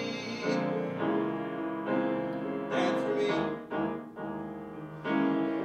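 Piano accompaniment to a cabaret show tune, playing a short instrumental passage of sustained chords between the sung lines.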